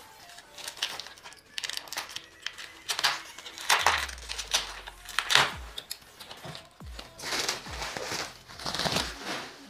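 Clear plastic wrapping crinkling and rustling in bursts as it is pulled and torn off a road bike's handlebars, over background music with low, regular drum hits.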